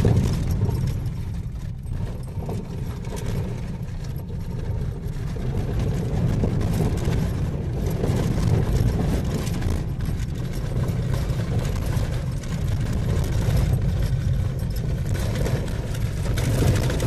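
Car driving along a rough dirt road, heard from inside the cabin: a steady low engine and tyre rumble with light rattling.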